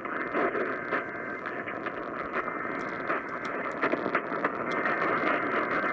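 Radio receiver static: a steady hiss from a weak off-air signal, with scattered crackles and a few faint steady tones in the noise.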